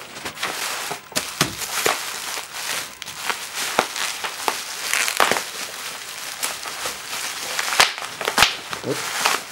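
A shipping package being opened by hand: packaging crinkling and rustling, with a string of sharp clicks and snaps throughout.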